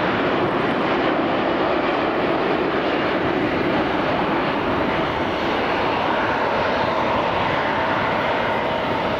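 Jet airliner engines, a loud steady rush of noise with faint steady whining tones that become clearer about six seconds in.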